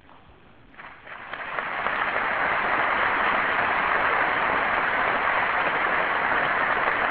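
Audience applauding, starting about a second in and building quickly to a steady level.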